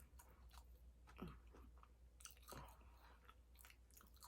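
A person chewing food, faint, with scattered soft mouth clicks.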